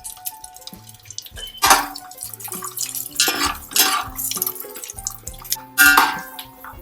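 A utensil clattering and scraping against a cooking pan in several loud short strokes, as grated coconut is stirred for frying, over quiet background music.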